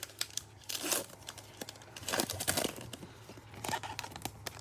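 Foil wrapper of a trading card pack crinkling and being torn open, with irregular crackles and rustles as the pack is handled.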